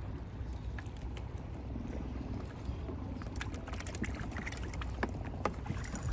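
Steady low rumble of water and wind around a small open fishing boat, with a few light clicks and knocks in the second half.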